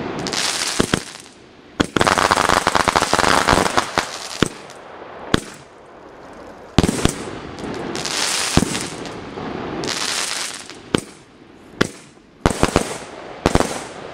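Fireworks going off: a string of sharp bangs, with a dense burst of crackling about two seconds in and hissing between the reports.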